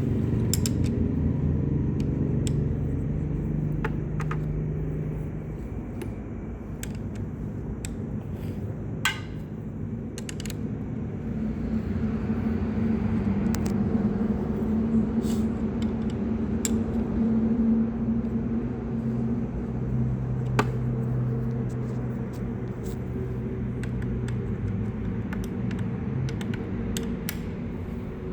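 Scattered metallic clicks and taps of hand tools on motorcycle fork parts as bolts are being loosened, over a steady low hum that is the loudest sound throughout.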